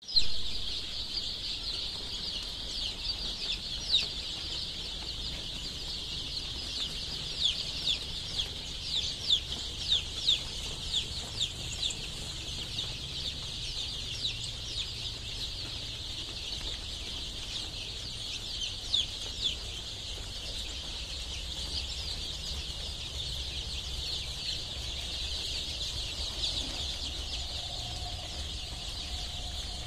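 Hundreds of desi chicks peeping together in a brooder: a dense, steady high-pitched chorus, with single louder peeps standing out, most often between about seven and twelve seconds in.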